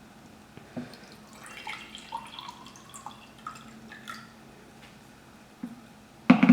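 Warm water being poured out, trickling and dripping, followed near the end by a sharp loud knock.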